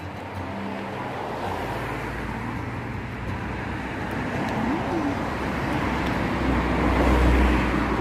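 A motor vehicle going by on a road. Its noise builds steadily and is loudest, with a deep rumble, about six to seven seconds in.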